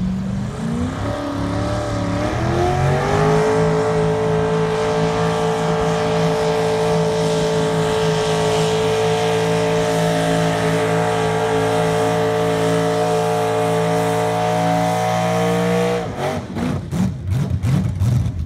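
Modified garden pulling tractor's engine revving up from a low note to a high, steady full-throttle note over about three seconds and holding it through the pull, then cutting off suddenly about sixteen seconds in. A couple of seconds of irregular pops follow.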